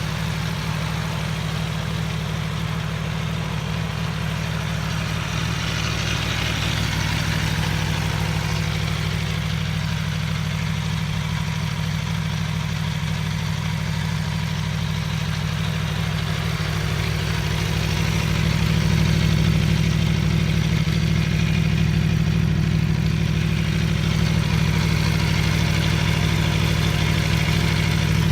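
Aprilia Tuono V4 1100 RR's V4 engine idling steadily, slightly louder from about two-thirds of the way through.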